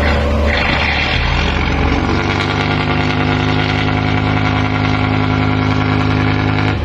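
Boat engine running close by. Its note shifts in the first two seconds, then holds a steady hum.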